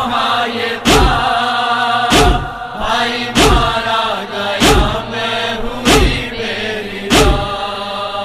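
Chorus chanting long held notes of a Shia noha lament, over a deep, regular thump about every second and a quarter that keeps the beat.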